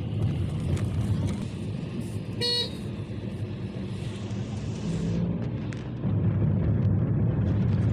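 Motor vehicle running on the road with a steady low rumble, and one short horn beep about two and a half seconds in.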